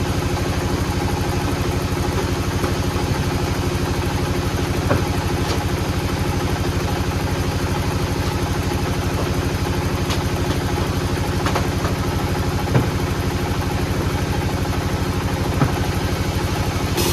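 An engine running steadily at a constant speed, with a few isolated sharp knocks over it.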